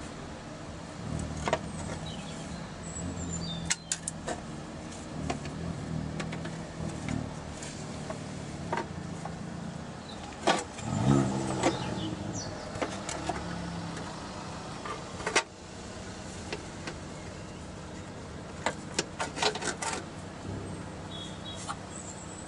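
The rocker cover is being set down onto the cylinder head of a Ford Pinto engine and worked into place by hand. Scattered knocks, clicks and clanks of metal on metal, with the loudest clunk about ten seconds in and a quick run of clicks near the end. A low steady drone underlies the first two-thirds.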